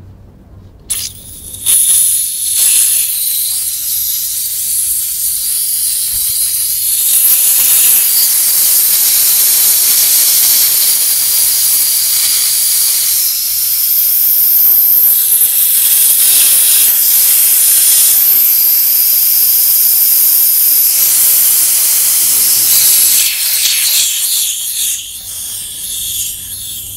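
Compressed air hissing out of an air compressor tank's opened drain valve: a loud, steady rush that starts about a second in and dies away near the end.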